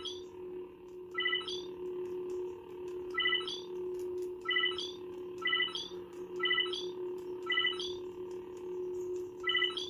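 Lightsaber sound board in colour-change mode: a steady low hum, with a string of short electronic beeps every one to two seconds, each ending in a quick rising chirp, as the blade colour cycles.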